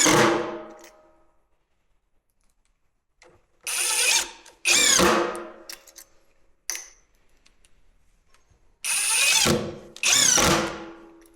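Power drill driving screws through the metal hoop into a whisky barrel to secure it. There are three pairs of short motor runs, each whine dropping in pitch as the screw draws tight, with a small click between the second and third pairs.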